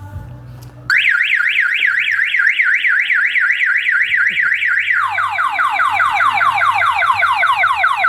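A homemade motorcycle alarm's electronic siren, set off by the bike being stood up off its side stand, starts suddenly about a second in. It is a loud, fast up-and-down warble, about five cycles a second, and about five seconds in it switches to rapid repeated falling sweeps.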